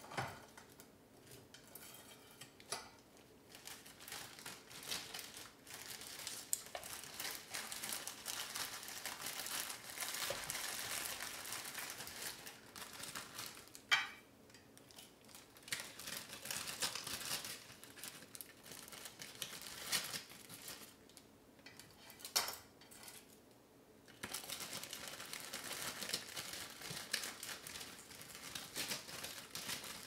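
Crinkling and rustling of wrapping being handled in stretches with short pauses, with a few sharp clicks, the loudest about halfway through and again later.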